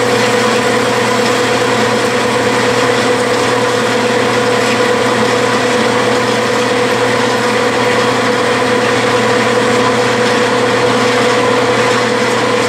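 Metal lathe running steadily while a cutoff tool plunge-cuts a groove into a turning metal workpiece: an even machine drone with a constant whine, unchanged throughout.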